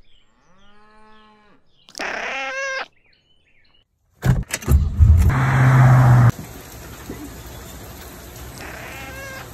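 Cattle mooing twice. Then a 1967 Mercury Cougar's V8 cranks, starts and runs loudly for about two seconds before cutting off sharply. Near the end a cat gives a short meow.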